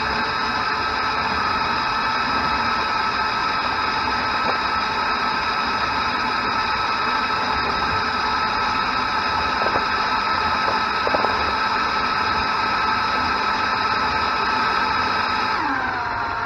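LEGO Technic electric motors and gearing whining steadily, a few pitches at once, with a couple of light knocks about ten seconds in. Near the end the whine drops in pitch and changes as the motors slow.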